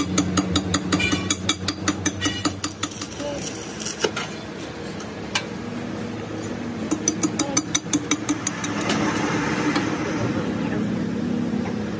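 Rapid hammer blows on steel, about four or five a second, striking a truck drop spindle held in a lathe chuck; the blows stop, then come again in a second burst. Near the end the metal lathe starts to spin, with a steady running noise.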